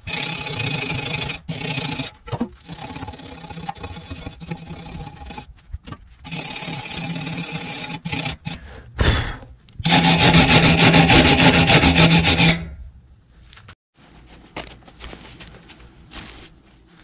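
Steel wire brush scrubbing rust off the outside of a cast iron dutch oven, in quick scratchy back-and-forth strokes with a few short pauses. The scrubbing is loudest and fastest for about three seconds in the middle, then stops, leaving only a few faint clicks near the end.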